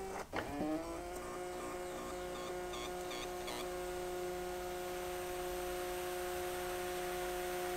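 Peripage A40 thermal printer printing a page: its paper-feed motor rises in pitch over the first second, then runs with a steady hum as the printed sheet feeds out.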